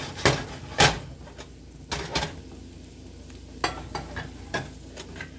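Metal skillet of frying okra being shaken and handled on an electric stovetop: a series of sharp clatters and knocks, the loudest a little under a second in, over a faint sizzle.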